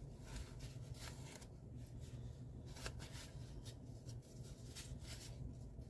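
Paper towel wiping and rubbing over the top of a mixer: faint, irregular rustling strokes.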